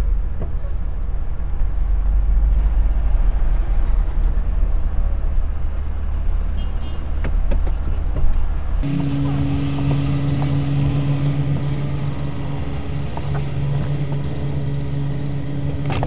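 Car engine running as the car manoeuvres with a small utility trailer in tow, heard from inside the cabin as a low rumble. About nine seconds in, the sound changes abruptly to a steady low hum.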